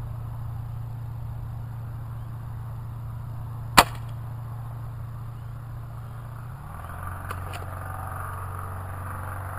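A single sharp crack of a 1000 fps air rifle firing a pellet, about four seconds in, over a steady low hum. Two faint clicks follow about three and a half seconds later.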